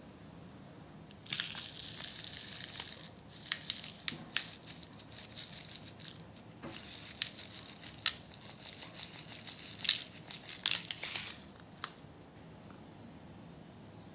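A small packet of candy sprinkles crinkling and rustling in stretches as it is handled and shaken, with scattered sharp ticks, from about a second in until near the end.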